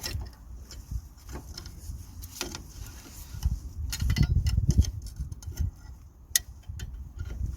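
Small metal drum-brake parts clicking and clinking as they are handled and fitted onto the backing plate, with a busier stretch of low knocks and rubbing in the middle.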